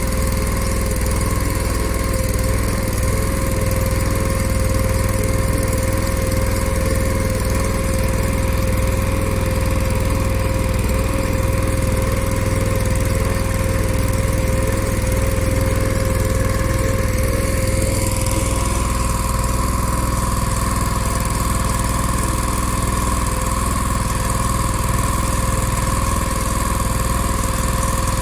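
A small engine running steadily at constant speed, its tone shifting slightly about eighteen seconds in.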